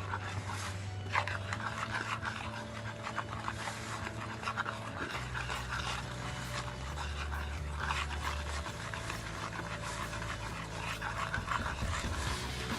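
Pancake batter being stirred by hand in a bowl: a quick, continuous run of scraping, slapping strokes.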